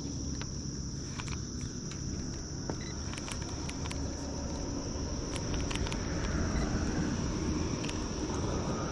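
Insects trilling in a continuous high-pitched drone, over a low rumble with scattered faint clicks.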